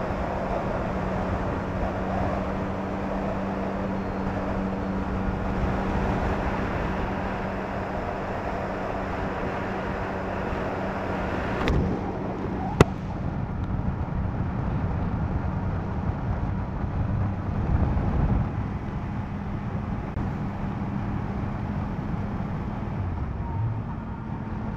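Yamaha MT-09 SP's three-cylinder engine running at steady cruising revs under way, with wind noise on the microphone. About halfway through there are two sharp clicks, and near the end the engine note wavers up and down.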